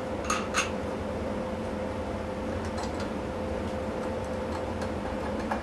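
Steady low hum with a faint held tone, and a few light clicks as washers are fitted onto the ends of threaded rods, two of them close together just after the start.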